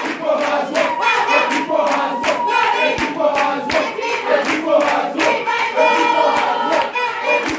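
A crowd singing together with hand clapping on a steady beat.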